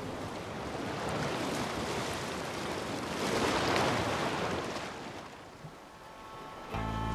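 Ocean waves washing, a swell of surf rising about three seconds in and dying away; music starts just before the end.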